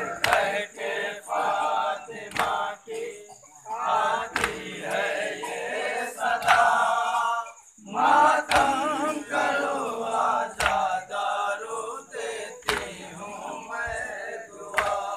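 Male voices chanting a noha, the Shia Muharram lament, over the sharp, unison slaps of matam chest-beating that fall in a steady beat about every two seconds.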